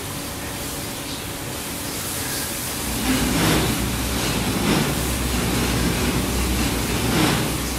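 Automatic rollover car wash's rotary brushes working over a car: a steady rushing noise, joined about three seconds in by a low machine hum and repeated swishes, roughly one a second, as the bristles sweep across the body.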